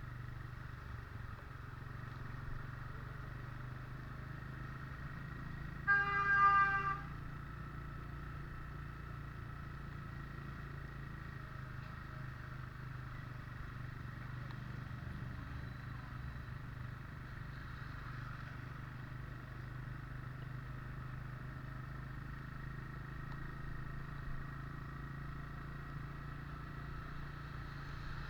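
Steady engine hum and road noise from a vehicle on the move. About six seconds in, a vehicle horn honks once for about a second.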